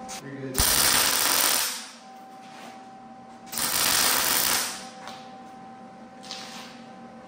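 Welder tack-welding the head tube onto a mini bike frame: two arc bursts of about a second each, with a faint short third one near the end. A steady low hum sits underneath.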